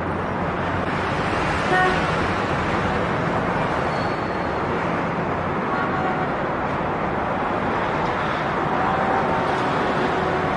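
Steady ambient traffic noise, with a couple of brief vehicle horn toots.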